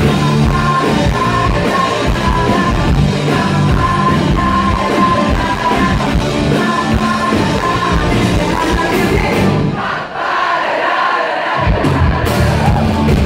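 Rock band playing live through a concert PA, a female lead singer's voice over electric guitar, bass and drums, heard from within the crowd. The bass and drums drop out for about two seconds near the end, then come back in.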